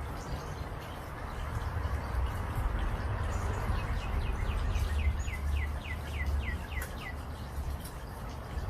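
A bird calling: a quick series of about a dozen down-slurred notes, a little over three a second, over a steady low outdoor rumble.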